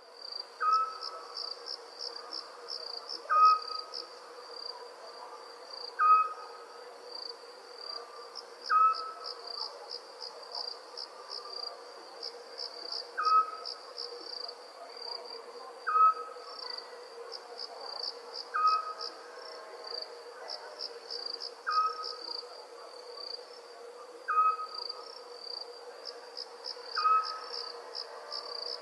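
Night chorus of crickets chirping in fast pulsed trills. A short, single call from another animal, possibly an owl or a frog, repeats about every two and a half to three seconds and is the loudest sound.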